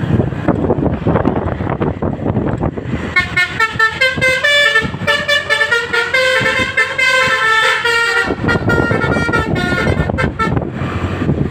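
Basuri telolet musical air horn on a bus playing a quick tune of several tones that step up and down for about five seconds. Wind buffets the microphone before and after it, over the rumble of the vehicle.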